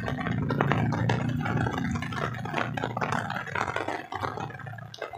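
A small engine running steadily at low revs, its hum fading after about three seconds, under rough rustling and knocking close to the microphone.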